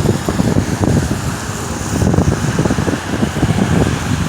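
Wind buffeting the microphone in a snowstorm: a loud, uneven low rumble that flutters constantly.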